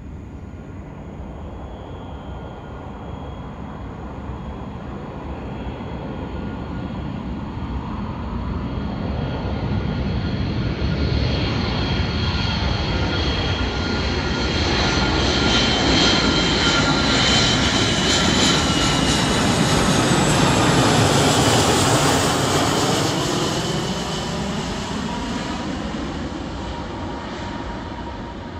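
The four CFM56 turbofan engines of a Boeing E-6B Mercury pass by. A jet rumble with a high whine swells steadily to its loudest about twenty seconds in, with a sweeping, phasing whoosh as the aircraft goes past, then fades as it moves away.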